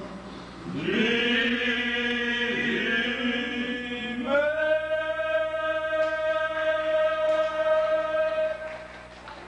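Men singing together without accompaniment, holding two long notes: the first from about a second in, then a higher note held until near the end.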